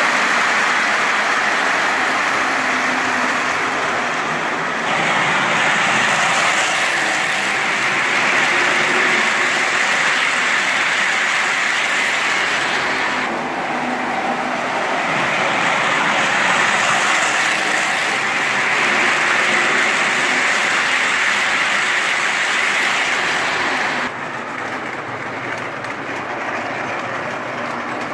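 O gauge model trains rolling on the layout's track: a steady whirring rattle of wheels on rails, shifting abruptly a few times and dropping quieter near the end.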